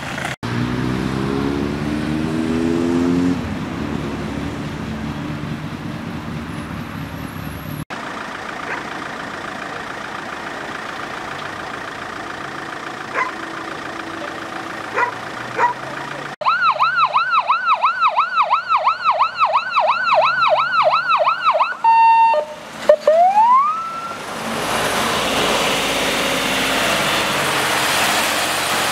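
Fire engine siren sounding a fast yelp, rapidly rising and falling about three times a second for some five seconds, then breaking into a single rising wail, followed by the steady noise of the fire engine driving past. Near the start, a vehicle engine revs up.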